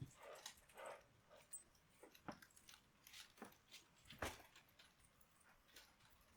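Faint scattered clicks and soft short noises, close to silence, with the sharpest click about four seconds in.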